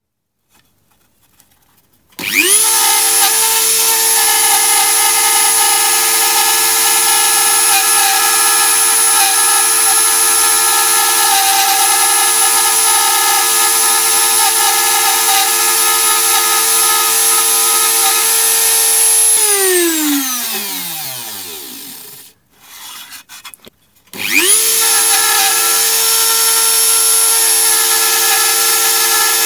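Dremel rotary tool fitted with a routing bit spins up to speed in under a second, then runs steadily with a high whine as it routes a homebrew PCB. About 19 seconds in it is switched off and winds down, falling in pitch over a few seconds. It starts up again about two seconds later and runs on.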